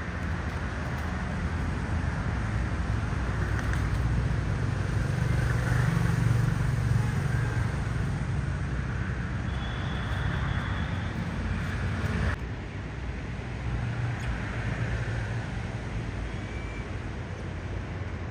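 Steady low rumble of a motor vehicle and road noise, swelling about six seconds in and dropping suddenly a little after twelve seconds.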